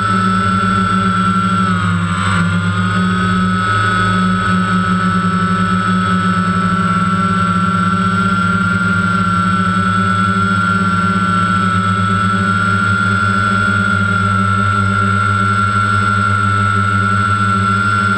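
Remote-controlled helicopter's electric motors and propellers whining steadily, heard close up through the camera it carries, with a brief dip in pitch about two seconds in.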